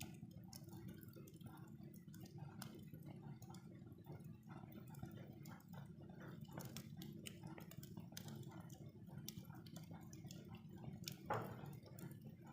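Fire in a fireplace crackling faintly: irregular small pops and ticks over a low steady rumble, with one louder snap about eleven seconds in.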